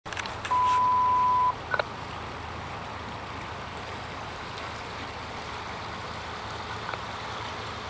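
A two-way radio gives a steady, single-pitched beep lasting about a second, followed by a short blip. After that there is only a steady hiss with a low hum.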